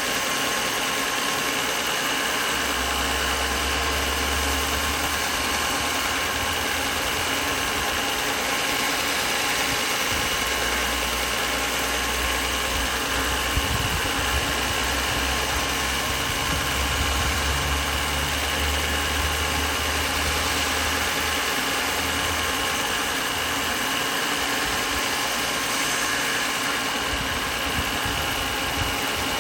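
A workshop machine running steadily with a constant whine. A deeper rumble comes and goes several times in the first two thirds.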